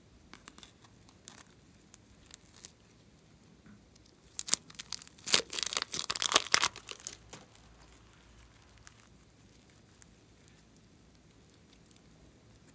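A few light snips of scissors cutting a plastic piping bag, then the thin plastic bag crinkling and tearing for about three seconds as it is peeled off a lump of clay.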